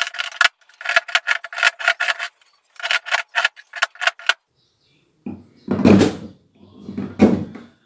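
Steel chisel scraping and chipping into set gypsum: a fast run of short rasping strokes for about four seconds, then after a brief pause two longer, deeper scraping pushes.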